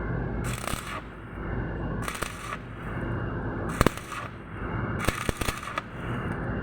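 Electric arc welding crackling in short bursts a second or so apart, with a few sharp cracks, over a steady low hum.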